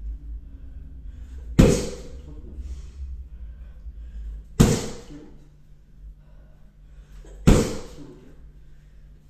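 Three bare-foot right kicks smacking a padded kick shield, about three seconds apart, each a sharp impact with a short ring after it.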